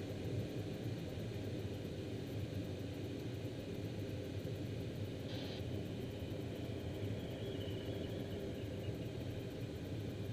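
Steady rush of airflow over a glider's canopy, heard inside the cockpit in engineless gliding flight.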